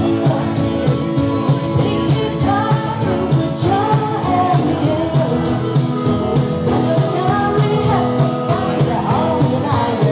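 Live band music: a woman singing over acoustic guitar with a steady beat.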